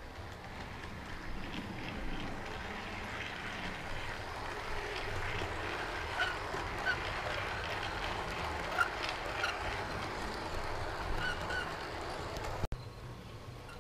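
Model railway train running along the track and passing close by, its running noise growing louder as it nears. Several short high squeaks come over it. The sound cuts out for an instant near the end.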